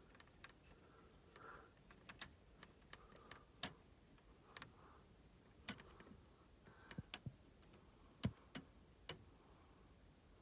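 Faint, scattered clicks and taps at irregular intervals over near silence, from hands handling plastic LEGO bricks of the model car wash.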